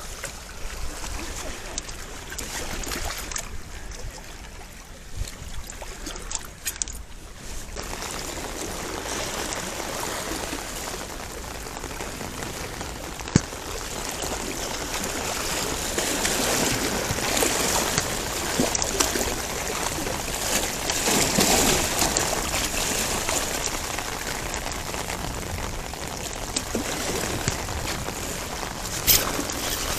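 Steady noise of moving water, trickling and splashing, that grows louder after about eight seconds. A sharp click comes about thirteen seconds in.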